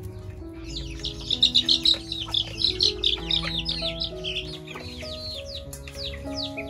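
Chicks peeping: many short, high chirps that fall in pitch, coming thick and fast from about a second in and loudest soon after. Background music with held notes plays underneath.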